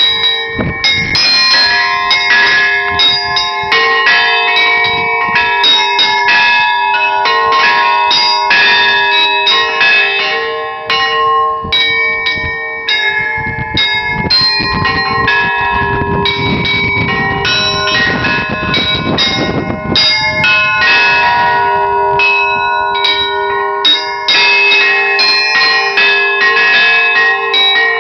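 Orthodox church bells rung by hand in a fast, dense peal: small bells struck in quick succession over the steady ringing of larger bells. A rushing noise rises under the bells around the middle.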